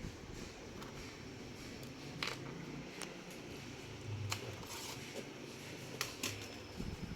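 A handful of sharp, irregular clicks and light knocks from handling a laptop's plastic casing and internal parts during disassembly, over a faint low hum.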